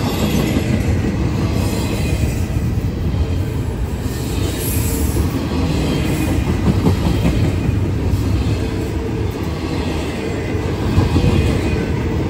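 Double-stack intermodal freight train's well cars rolling past close by: a loud, steady noise of steel wheels on the rails.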